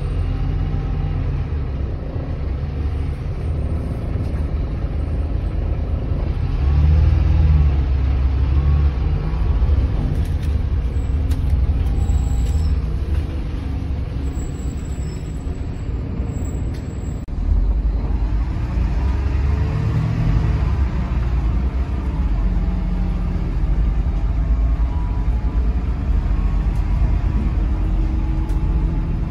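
Volvo B8RLE bus's diesel engine and running gear heard from inside the passenger saloon: a steady low rumble that swells about seven seconds in and again from about seventeen seconds as the bus pulls harder, with the engine note rising and falling around twenty seconds.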